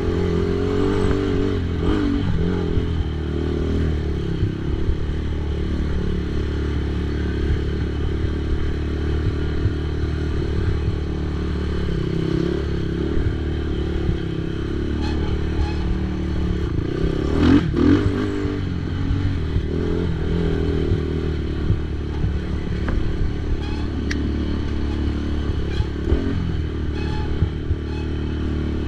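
ATV engine running hard under racing throttle, its pitch rising and falling as the rider works the throttle, with the machine clattering and scraping over rough ground. A louder thump a little past halfway.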